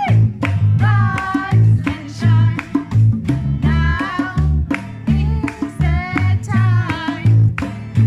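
Live acoustic band music: a woman singing over strummed acoustic guitar, with bass guitar and hand drums keeping a steady beat.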